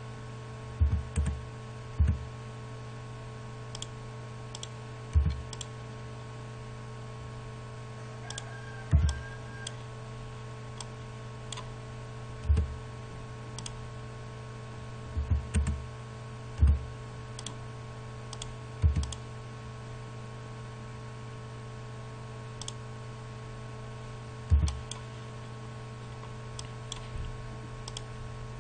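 Computer mouse clicks, about a dozen at irregular intervals, each with a short dull thud, over a steady low hum.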